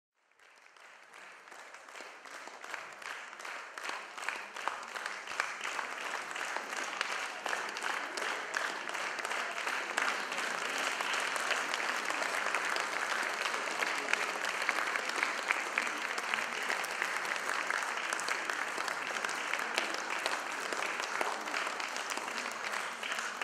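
Theatre audience applauding, many hands clapping in a dense, steady stream, fading in over the first few seconds.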